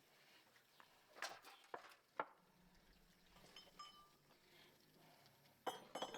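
A few short knocks and clatters of handling in two clusters, about a second in and again near the end, over a quiet background.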